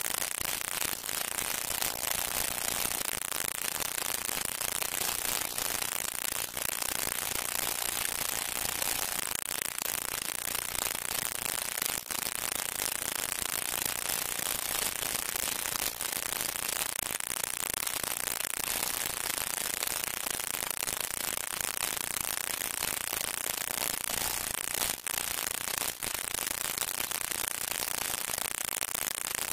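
Steady hiss with a few scattered clicks: the surface noise of an old film soundtrack, with no music or voices in it.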